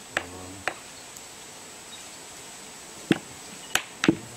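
Capuchin monkey tapping a palm nut against a wooden log anvil with its hands, making short, sharp knocks: two in the first second, then three more a few seconds later.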